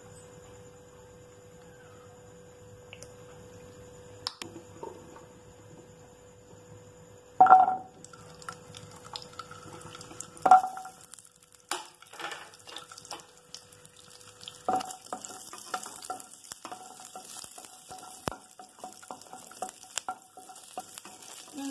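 Shallots tipped into hot oil in a nonstick kadai, with two ringing clanks against the pan about seven and ten seconds in. Then a sizzle sets in, with clicks and scrapes as a wooden spatula stirs them.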